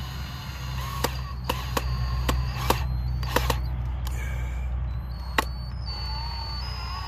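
Black & Decker 18V cordless drill driving a screw slowly into a wooden board: a low motor hum with a series of irregular sharp clicks. The hum eases after about five seconds.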